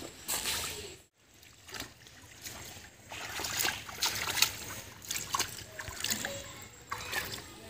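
Water splashing and trickling in irregular bursts, from goldfish being caught and handled in shallow water.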